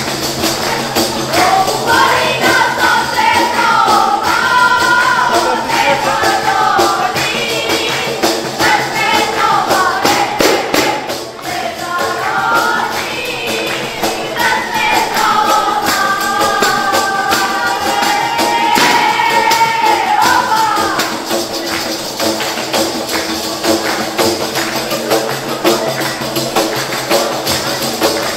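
A women's frame-drum group (defatoret) at an Albanian wedding: def frame drums with jingles beaten in a steady rhythm, with sung phrases over them in two long stretches. The singing stops after about twenty seconds, leaving the drums.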